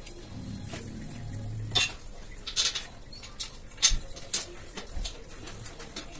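Steel rack parts clinking and knocking together as the mesh-sided frames are handled and fitted onto the steel rails: a run of sharp metallic clicks and knocks, the loudest about four seconds in.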